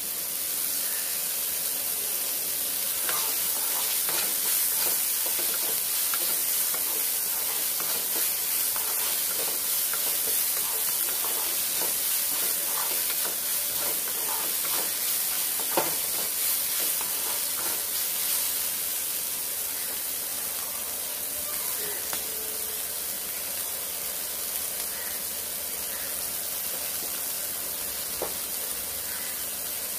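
Sliced onions, carrots and green peas sizzling in hot oil in a non-stick kadhai, a steady frying hiss. A wooden spatula stirs and scrapes through them now and then.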